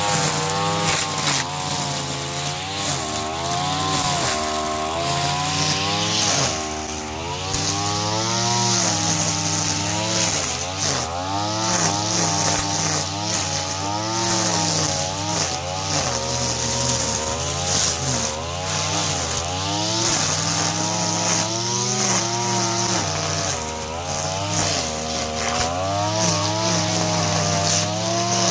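Mitsubishi TL33 two-stroke brush cutter running with barbed nylon trimmer line, cutting tough old goosegrass. The engine pitch keeps rising and falling as the line bites into the grass, with a hiss of the spinning line over it.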